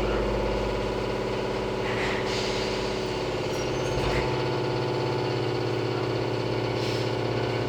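Izuhakone Railway 3000 series electric train heard from inside the carriage: a steady hum and rumble of the running gear, with the low rumble changing about three to four seconds in.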